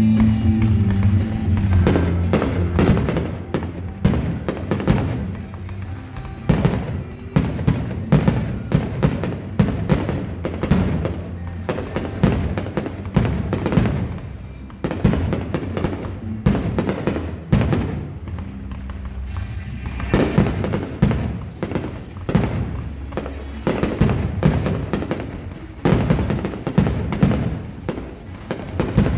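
Aerial fireworks shells bursting in a rapid, almost unbroken string of bangs, many overlapping, with music playing under the first second or two.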